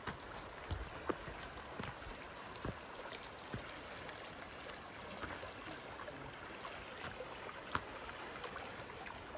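Steady rush of a clear, shallow forest river flowing over rocks, with a few scattered footsteps on the dirt trail.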